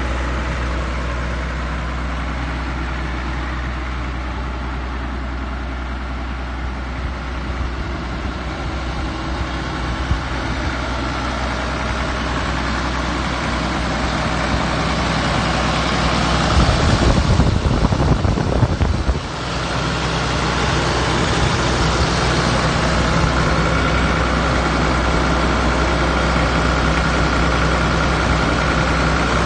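Case 970 tractor's engine idling steadily. About two thirds through, a loud rough rumble lasts about three seconds and cuts off suddenly.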